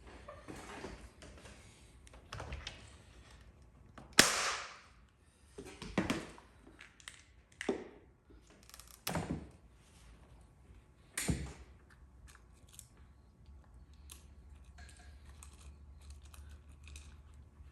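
Paintless dent repair work: a series of sharp cracks and knocks, about five of them a couple of seconds apart, the first one the loudest, with smaller clicks and taps between.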